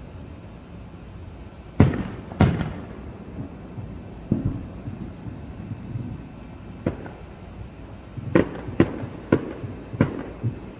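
Fireworks going off: a series of sharp bangs with short echoing tails. Two loud bangs come about two seconds in, then a few fainter scattered ones, and a quick run of four bangs near the end.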